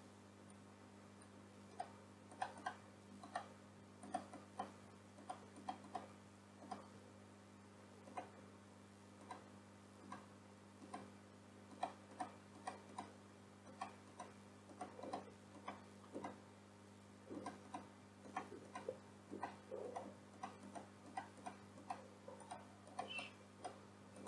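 Computer mouse buttons and keyboard keys clicking, irregular single clicks and short quick runs of clicks starting about two seconds in, over a faint steady electrical hum.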